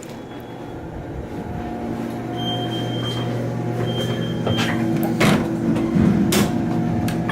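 1996 Otis Series 1 traction elevator: a steady low hum that builds over the first couple of seconds as the car gets under way. Two short high beeps come near the middle, and a few sharp clunks follow later.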